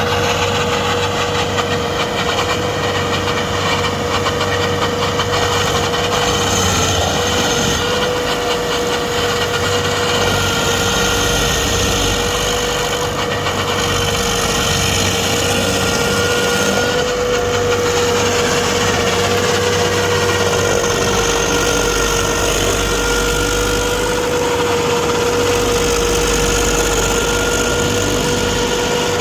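Stump grinder's engine running steadily, with a steady whine held throughout.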